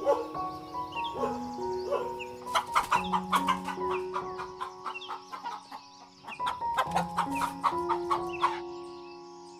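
Chickens clucking in two bursts of rapid clucks, about a third of the way in and again near the end, over soft background music with long sustained notes.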